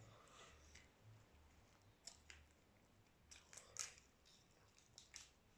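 Faint sounds of boiled shrimp being eaten: a scattering of short crunches and clicks, with the loudest cluster about four seconds in.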